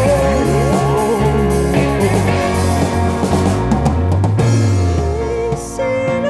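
A live rock band playing an instrumental passage: drum kit, bass guitar, electric guitars and keyboards, with a rising pitch glide in the first second.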